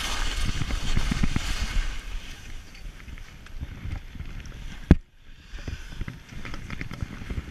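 Skis sliding and scraping over packed snow with wind buffeting the microphone, full of small bumps, heavier in the first couple of seconds and then easing. A single sharp knock about five seconds in.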